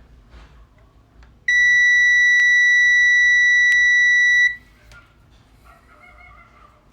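A single steady electronic beep: a high, pure tone held for about three seconds, starting about a second and a half in, with two faint clicks during it.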